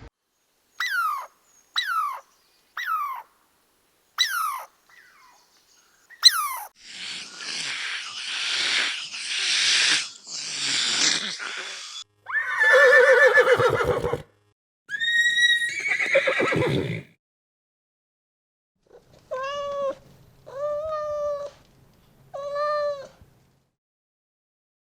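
Farm animals calling one after another: short squeaks, breathy snorting bursts, two longer cries and three short even-pitched calls, with pauses between.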